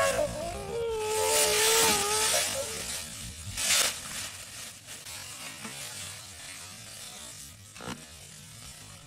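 Dry leaves crunching and rustling under two people scuffling, with a thump about three and a half seconds in as one is thrown down. A held, wavering cry sounds through the first two seconds.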